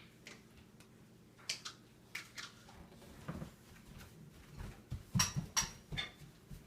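Dishes and cutlery clinking and knocking as they are handled and set down: a scatter of separate clinks, some with a short bright ring, the loudest a few close together about five seconds in.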